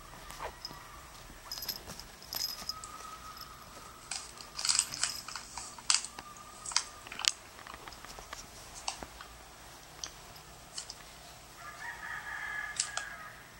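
Scattered small clicks, taps and rustles of a kitten batting at and biting a foam toy dart on a fabric sofa, with a short pitched sound near the end.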